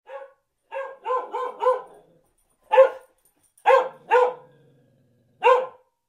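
A puppy barking in short, high-pitched yips, about nine in all: a quick run of four in the first two seconds, then single barks and a pair spaced out with silence between.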